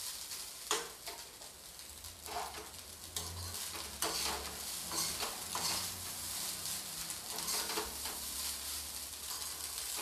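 Steel perforated spatula scraping and tossing vegetable fried rice in a black kadhai, in repeated strokes roughly once a second, over a light frying sizzle with the gas flame still on.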